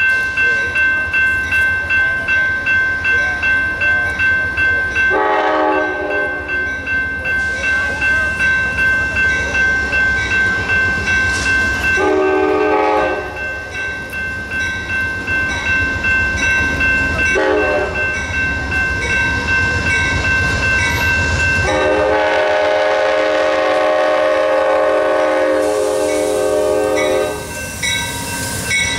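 Amtrak GE P42DC diesel locomotive blowing its horn in the grade-crossing pattern as it approaches: two long blasts, a short one, then a final long blast of about five seconds. Under it, a bell rings steadily about twice a second, and the diesel engine drones low.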